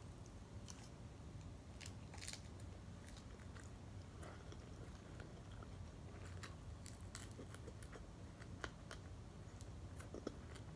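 Faint chewing and crunching of a mouthful of fried shrimp tempura sushi roll, with scattered soft clicks and crackles.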